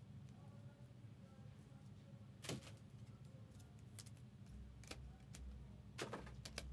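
Near silence broken by a few faint, sharp clicks and taps of trading cards and plastic card holders being handled at a desk.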